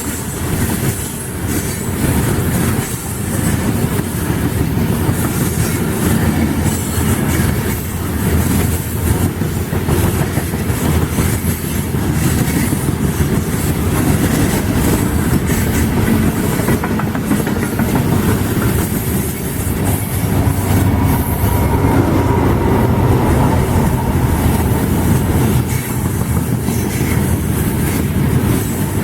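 A freight train rolling steadily past, its wheels clattering rhythmically over the rail joints above a heavy low rumble.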